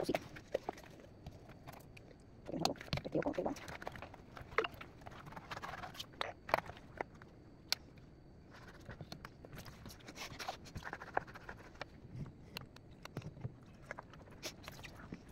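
Rubber-gloved hand rubbing and smearing oven cleaner over a greasy gas stovetop: irregular short rubbing sounds with scattered small taps and clicks, busiest about two to three seconds in.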